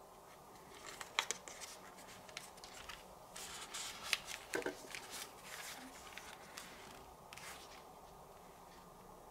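Close-up handling noise: rustling with several sharp clicks, busiest from about one to five seconds in, with a last click at about seven and a half seconds.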